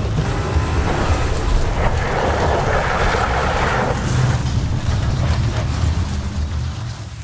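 Car engines and tyres churning loose dirt, with a deep steady rumble underneath and a hissing rush that is strongest midway, fading away near the end.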